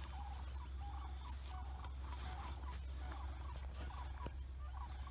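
Many short animal calls repeated at a similar pitch, over a steady low hum.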